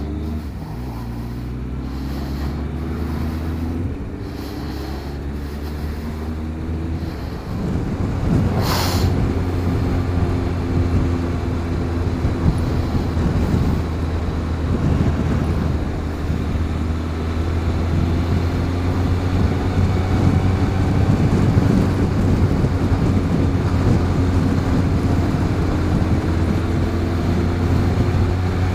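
Motorcycle engine heard from a helmet camera, pulling away and accelerating up through the gears: its pitch climbs and drops back several times over the first eight seconds. After that it settles into a steady cruise under rushing wind, with a short burst of noise about nine seconds in.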